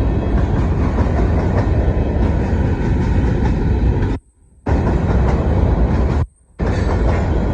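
Union Pacific grain train's freight cars rolling past on the rails, a steady, loud, low-heavy noise. The sound cuts out abruptly twice, for about half a second each time.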